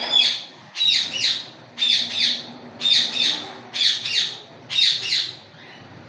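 Indian ringneck parakeet squawking: six loud, high double calls in a steady series, about one a second.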